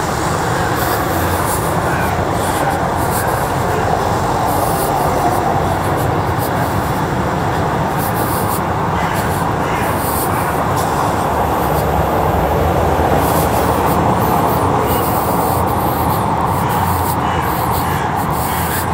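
Steady busy-street noise, mostly road traffic, with no single event standing out.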